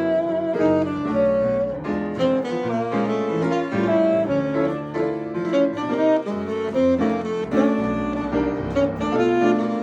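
Jazz played live by a band: a melody line moving from note to note over a continuous accompaniment, with no pauses.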